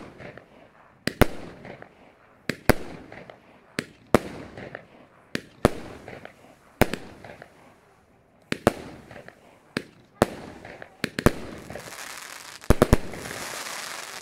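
Consumer firework battery firing shot after shot at an even pace, about one every second and a half, many shots heard as two sharp bangs in quick succession. Near the end comes a couple of seconds of dense hissing noise.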